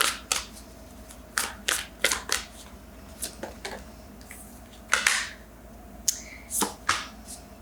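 A deck of oracle cards being shuffled and handled: a string of sharp, irregular snaps and clicks as the cards are cut and tapped, with a longer swish of sliding cards about five seconds in.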